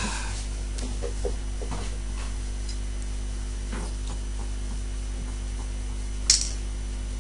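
A steady low electrical hum under a man drinking from a glass bottle, with faint small noises. A short, sharp clink of the bottle a little after six seconds in as it comes down.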